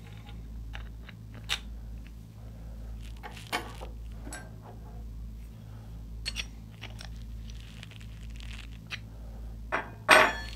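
Metal suppressor parts and hand tools handled on a wooden workbench: scattered light clicks and knocks as a part is turned with an open-end wrench, with a louder clunk about ten seconds in as the wrench goes down on the bench. A low steady hum runs underneath.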